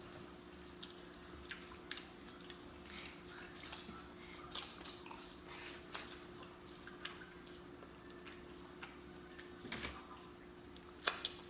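Close-up chewing and lip smacking while eating pizza: many small, soft wet clicks at uneven intervals, with a louder one near the end, over a faint steady hum.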